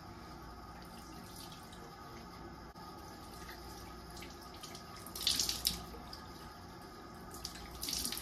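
Water from a bathroom sink tap running steadily while foaming face wash is rinsed off by hand. There are two louder bursts of splashing, about five seconds in and again near the end.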